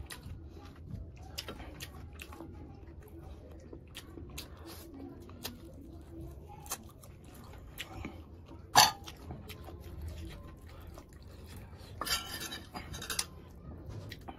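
Curry being eaten by hand from a glass baking dish with a metal spoon in it: soft wet clicks of fingers and chicken pieces, one sharp clink against the dish about nine seconds in, and a short rattle of clinks around twelve to thirteen seconds.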